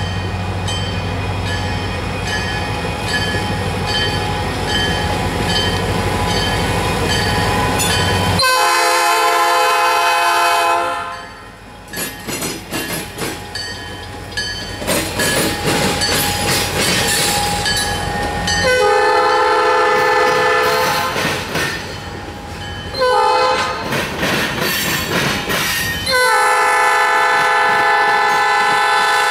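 EMD SD40-2 diesel locomotive's 16-cylinder two-stroke engine running as it passes close. The horn then sounds the grade-crossing signal: two long blasts, a short one and a final long one, still sounding at the end.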